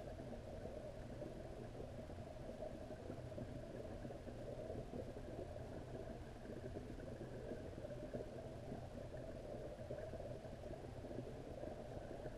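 Steady, muffled underwater rumble and hiss picked up by a camera submerged in a pond, with no separate splashes or knocks.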